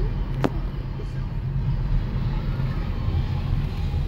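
Steady low rumble of a car driving, heard from inside the cabin, with a single click about half a second in.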